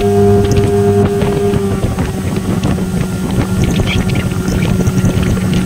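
Suzuki 15 hp long-shaft outboard motor running under power at speed, with water rushing and splashing past the hull; its steady note shifts slightly about two seconds in.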